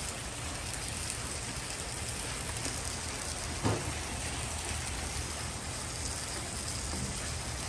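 Steady sizzling on a hot flat-top griddle, with meat, onions and cheese cooking and oil being squeezed onto the bare plate. One short knock comes about three and a half seconds in.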